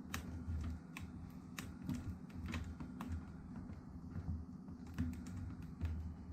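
Plastic display bezel of a Lenovo ThinkPad T490s being pressed back onto the screen lid, its clips snapping in with a run of irregular light clicks and taps, among soft handling thuds.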